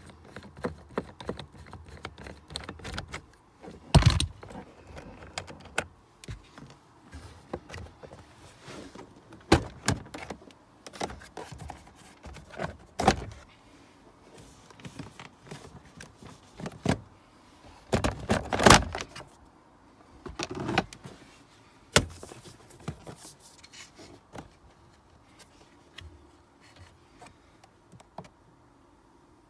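Hands working plastic interior trim and the cabin-filter housing under the glovebox of an Opel Zafira Tourer: irregular clicks, knocks and plastic rattles, with a handful of sharp knocks and a short cluster of rattling about 18 seconds in.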